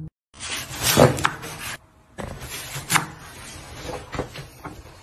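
A kitchen knife slicing watermelon on a wooden cutting board: a few sharp knocks and clatters as the blade hits the board, the loudest about a second in.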